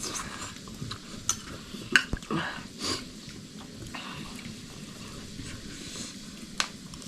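Utensils clinking and scraping against pots and dishes, with a few sharp clinks over a faint steady hiss.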